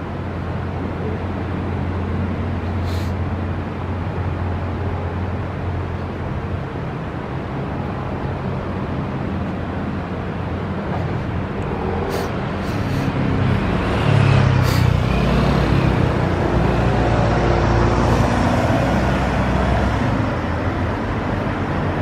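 Street traffic ambience: a steady low hum of passing cars and city noise, swelling louder for several seconds past the middle as a vehicle goes by.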